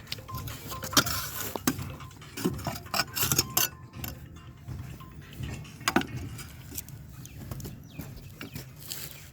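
A series of irregular sharp clinks and knocks, the loudest about a second in and about six seconds in, over a low steady hum.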